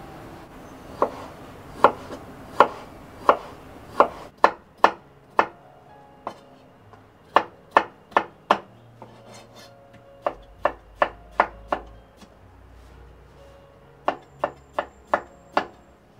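Kitchen knife chopping cooked chayote on a wooden cutting board: sharp strokes of the blade against the board in four short runs, about two to three strokes a second.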